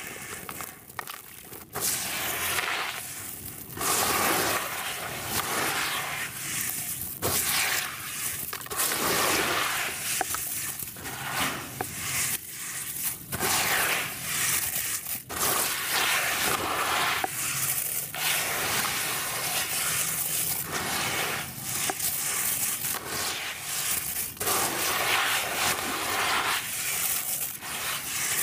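Sand-and-cement clump being crumbled and squeezed by hand in a basin of water: wet, gritty crunching and scraping in repeated swells, quieter for the first couple of seconds.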